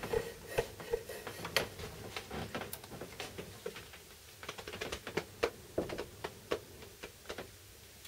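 Irregular light clicks and taps, a few a second, of someone handling plugs and switches off camera while checking whether a PCB preheater is plugged in and switched on.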